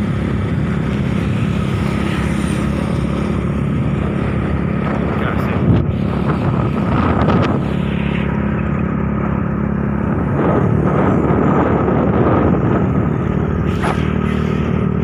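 Motor scooter's engine running steadily at cruising speed on a highway, with passing traffic swelling the noise twice, about halfway through and again later. A brief knock about six seconds in.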